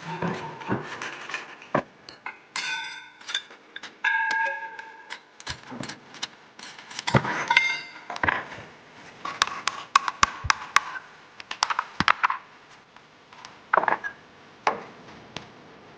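Metal motor parts and tools being handled: irregular clinks, taps and knocks, with two short held tones about three and four seconds in.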